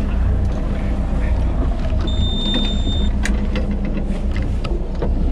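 BJ 5000 EX electric jigging machine winding its line up from depth with a steady low hum, giving one high beep about a second long about two seconds in. A few sharp ticks, the loudest just after the beep.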